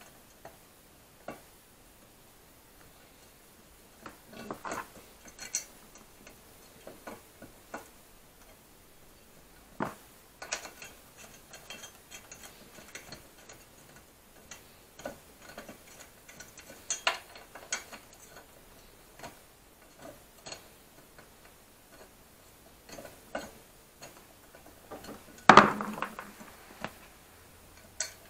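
Irregular metallic clicks, clinks and knocks of hand tools and steel parts being handled and fitted while moped footpegs and a brake pedal are assembled, with a louder clank near the end.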